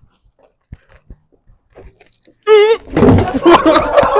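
A short shout, then loud metallic clattering and jangling of a BMX bike from about three seconds in, after faint scattered clicks.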